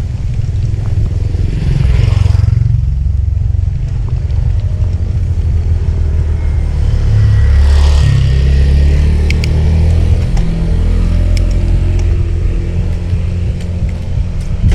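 Heavy wind buffeting the microphone while riding a bicycle along a road, with motor vehicles passing about two seconds in and again about eight seconds in, the second one with an audible engine note.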